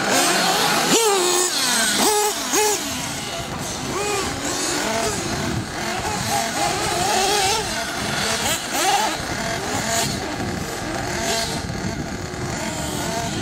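Several nitro-powered RC buggies racing, their small glow engines whining and constantly rising and falling in pitch as they rev up and back off, several engines overlapping.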